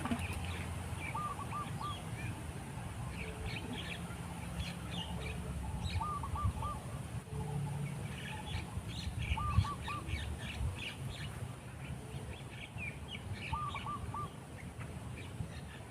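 Birds calling outdoors: one bird repeats a quick phrase of three or four short, even notes every few seconds, while other small birds chirp higher and more irregularly. A low steady rumble sits underneath.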